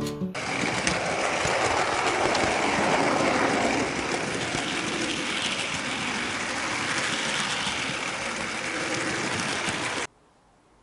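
HO scale model train running along the track: a steady rolling hiss and rattle of wheels and motor, a little quieter after about four seconds, that cuts off suddenly near the end.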